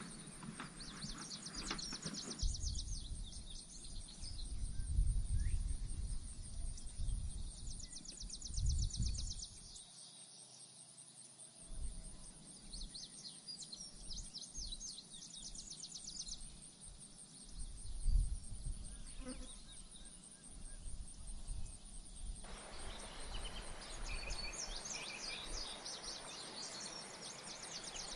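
Outdoor ambience: repeated bursts of quick, high chirping trills over a steady high-pitched hiss, with uneven low rumbling underneath.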